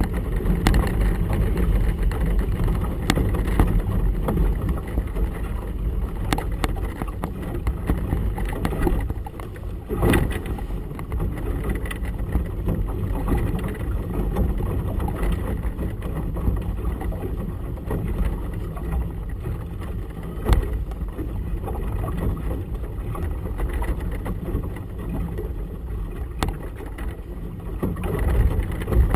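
Steady deep rumble of wind and choppy water around a boat, with a few sharp knocks, about a third and two thirds of the way through.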